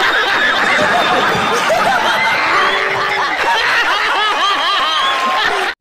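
A studio crowd laughing loudly all at once, many voices overlapping, with clapping. It cuts off suddenly near the end.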